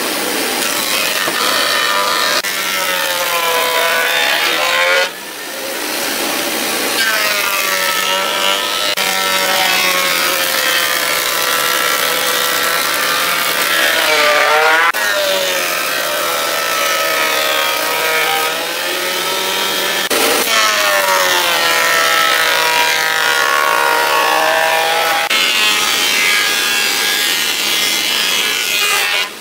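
Thickness planer cutting boards, a loud continuous whine mixed with the noise of chips being cut. The machine's pitch sags and recovers several times, as the cutterhead bogs down under each cut.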